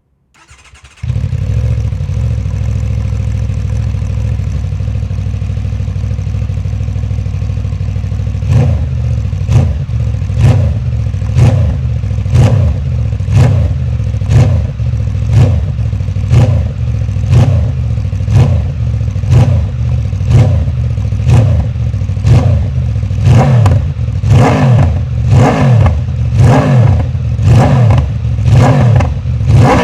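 Aprilia RSV4's V4 engine breathing through an SC-Project GP22 slip-on exhaust: cranked and catching about a second in, idling steadily, then blipped hard on the throttle about once a second from around eight seconds in.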